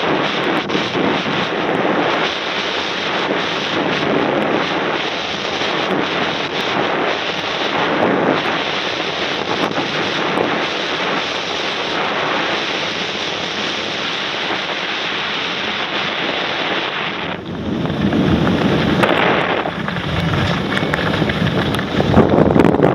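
Wind rushing over the microphone while skiing, with skis scraping over an icy, hard-packed piste. The rushing grows louder and deeper about two thirds of the way in.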